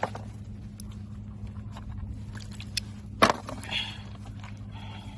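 A steady low hum, with one sharp knock a little over three seconds in and a few faint clicks around it.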